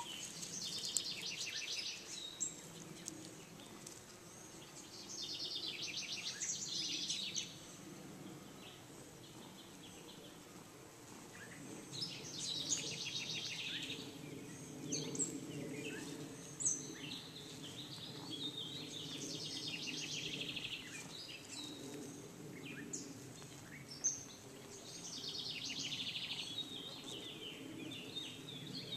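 Songbirds singing short, fast trilled phrases that repeat every few seconds, over the low, wavering buzz of bees flying around a flowering bush.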